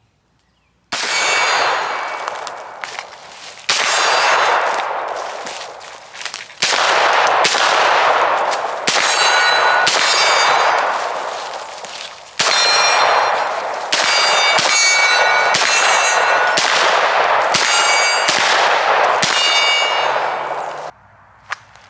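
Gunshots striking steel targets, each hit followed by the plate ringing with a metallic clang. After about a second of near silence the shots start and come in quick strings, most rapid in the second half.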